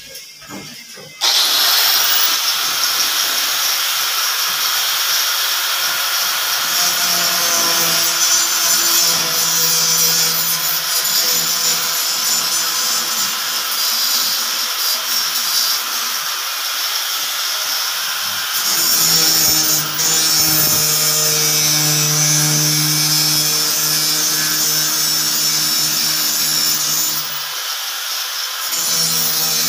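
Angle grinder switched on about a second in and run continuously while pressed against a ceiling board overhead, its pitch and load shifting as it grinds, easing off briefly near the end.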